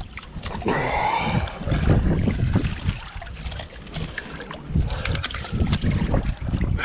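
Water sloshing and gurgling, with wind buffeting the microphone as an uneven low rumble and a few scattered knocks.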